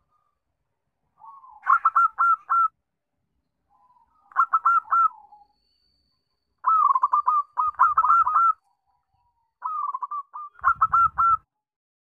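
Zebra dove (perkutut) cooing: four phrases of quick, rolling coos, each one to two seconds long, with short silent pauses between.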